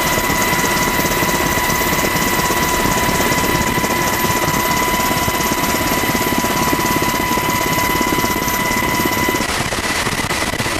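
Helicopter rotor and turbine running in steady flight, heard from aboard the aircraft as a loud, fast, even chop with a steady high-pitched whine that cuts off near the end.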